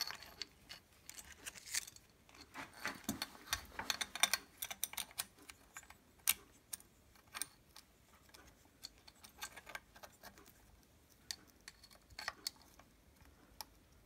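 Light metallic clicks and clinks as a cam sprocket, timing chain and screwdriver are handled against a dirt-bike engine's aluminium cylinder head while the valve timing is set. The clicks come thickest in the first few seconds and thin out later.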